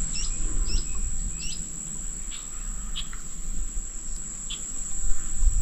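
An insect, cricket-like, holding one steady high-pitched tone, with a few short falling bird chirps in the first second or so. A low rumble of wind or handling on the microphone lies underneath.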